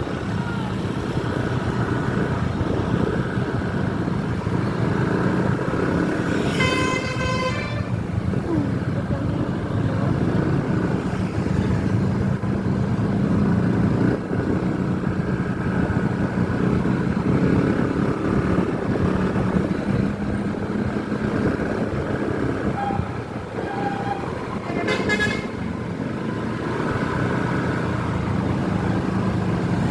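Bus engines running steadily in traffic, with a horn blast lasting about a second and a half around seven seconds in and a shorter toot around twenty-five seconds in.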